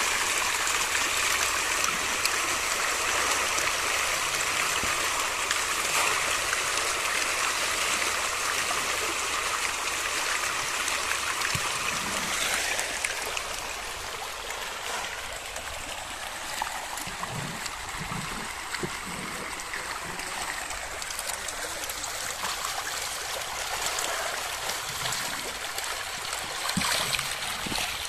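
Steady splashing and churning of a dense shoal of monosex GIFT tilapia feeding at the pond surface, many fish thrashing at once; it eases somewhat about halfway through.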